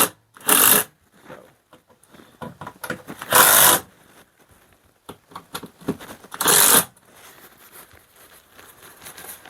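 Cordless power driver run in short bursts, tightening the mounting bolts of a camper's rooftop A/C unit: four bursts of about half a second each, spread out over the stretch.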